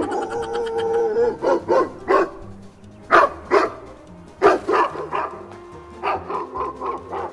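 Recorded dog barks played through a loudspeaker: a string of loud barks, mostly in quick groups of two or three. Music plays underneath.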